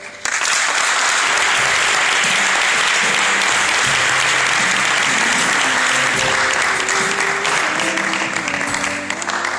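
Congregation applauding loudly, breaking out suddenly and thinning out near the end, with sustained music playing underneath.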